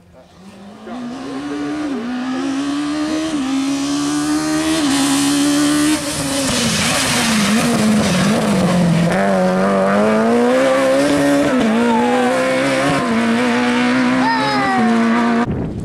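Rally car engine at high revs, its pitch climbing and dropping in steps through gear changes and lifts, growing louder over the first few seconds as the car comes closer.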